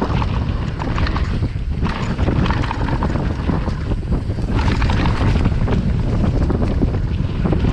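Wind buffeting the microphone of a camera riding down a dirt downhill track on a mountain bike, with a steady rumble and many small knocks and rattles from the bike over rough ground.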